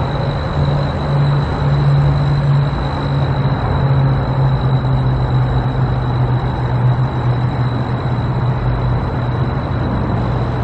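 Motor vehicle running steadily, a constant low engine hum under road noise, with a thin steady high-pitched tone over it.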